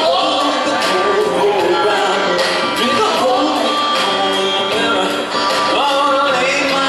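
Live band music: a male voice singing over electric guitar, upright bass and drums.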